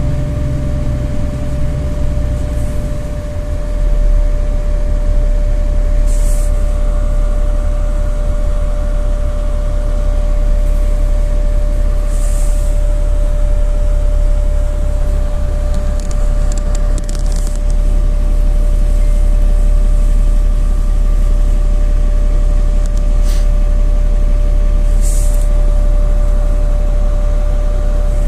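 Inside a NefAZ bus under way: a steady low rumble of the running bus with a constant whine over it. The rumble swells about four seconds in, and a few brief hisses break through it.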